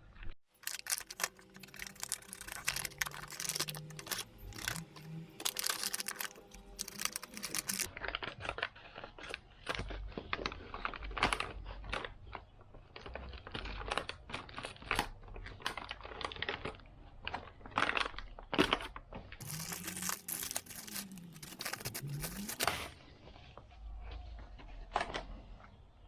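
Handling noise: crinkling, tearing and many irregular clicks and knocks as things are handled, in several edited segments.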